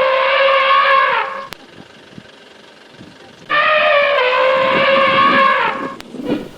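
Elephant trumpeting: one call that is already sounding and ends about a second in, then a second call of about two seconds starting after three seconds, its pitch dropping as it ends, followed by rougher, broken low sounds near the end.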